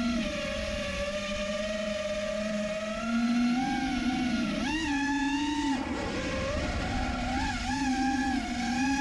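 FPV racing quadcopter's brushless motors and propellers whining, the pitch rising and falling with the throttle, with a sharp jump in pitch about halfway through that drops back a second later.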